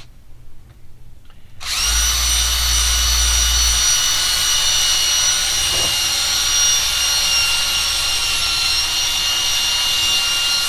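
Handheld power tool running steadily at speed with a high whine, working in a bowling ball's thumb hole to open up a fit that felt a little tight. It starts about two seconds in and cuts off abruptly near the end.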